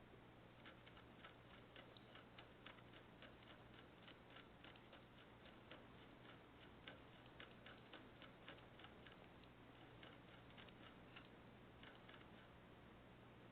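Faint, irregular clicking, a few clicks a second, over a steady low hum.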